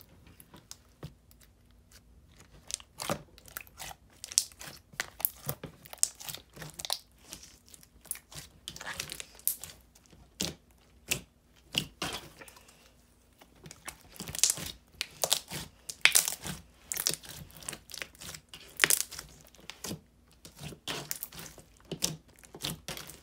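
Hands squishing, poking and folding a thick, glossy white-glue slime packed with jumbo and medium foam beads. The sound is irregular crackling, popping and squelching.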